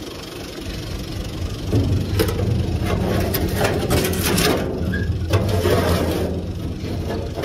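UTB tractor's diesel engine running steadily, growing louder and noisier from about two seconds in until shortly before the end.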